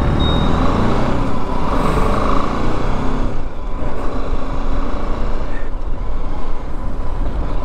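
BMW G 310 GS's single-cylinder engine running as the motorcycle rides through city traffic, with road and wind noise; the sound eases a little about three seconds in.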